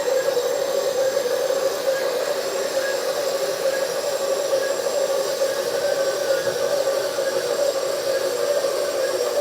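Scale LESU 9150 RC hydraulic excavator running steadily: its hydraulic pumps and the speaker's simulated engine sound together give a constant hum centred in the midrange.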